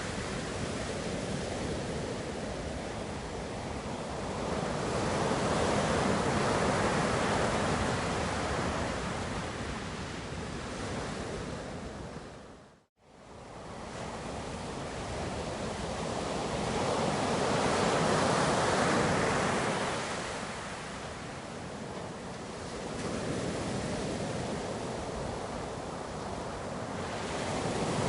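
Ocean waves surging and receding, a steady rushing surf that swells and eases every several seconds. The sound cuts out to silence for a moment about halfway through.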